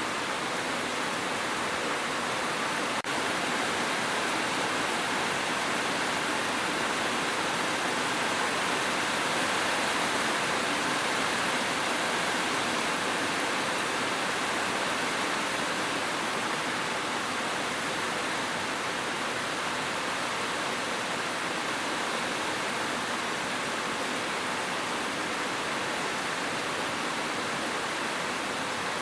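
Steady, even hiss of dense rain, with no distinct drops or rhythm standing out. A tiny click comes about three seconds in.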